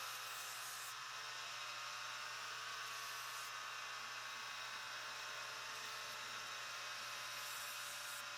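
Wilton belt sander running with an 80-grit belt: a steady hum under an even hiss. A knife blade is ground against the belt in a few short passes, each brightening the hiss, the first right at the start, one about three seconds in and one near the end.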